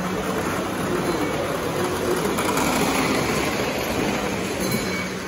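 Three-rail model train running on the layout's track: a steady rumbling rattle of wheels on rails as a string of silver streamlined passenger cars rolls past close by, a little louder two to three seconds in.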